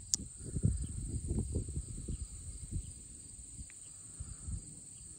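Steady high-pitched insect chirring, with low rumbling handling noise and a sharp click just after the start, then a faint click later, as the blade of a Northwoods Bear Lake slipjoint pocketknife is worked closed.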